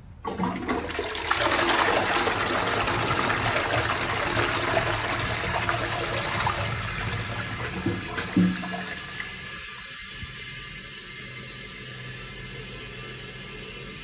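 Lecico Atlas close-coupled toilet flushing: a sudden rush of water into the bowl, with two short gurgles from the trap about eight seconds in as the flush ends, then a quieter, steady hiss of water as the cistern refills.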